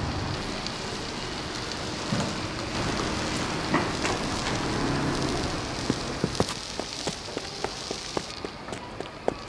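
A steady noisy hiss, then from about six seconds in, quick footsteps of sneakers on asphalt, about three a second.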